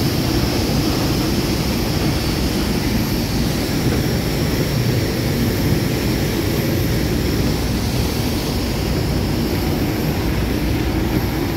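Steady, loud aircraft noise on an airport apron: a constant low rumble with a faint high whine, unbroken throughout.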